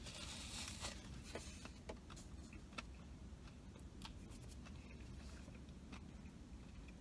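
A big bite into a paper-wrapped bacon cheeseburger, with a crinkle of the paper wrapper in the first second. Then faint chewing with scattered small clicks.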